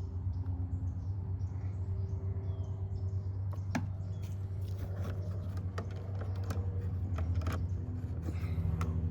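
Small sharp clicks and taps of plastic parts being handled, coming thick from about three and a half seconds in, over a steady low hum.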